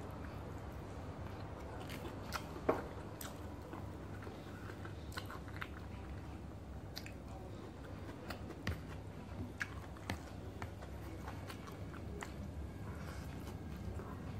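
Close-up chewing and mouth sounds of someone eating by hand, with scattered short clicks and smacks, over a steady low hum.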